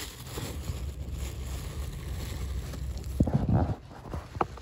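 Phone microphone handling noise: a low rumble and rubbing as the phone moves against clothing and a bag, with wind on the microphone. A few short knocks come about three seconds in and again near the end.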